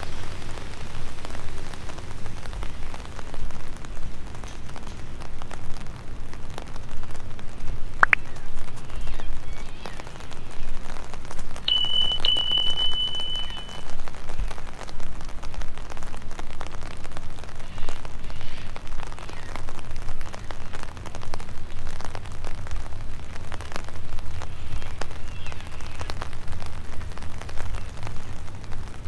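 Rain falling steadily, with many small drop impacts ticking through it. About midway a single high steady beep sounds for about two seconds.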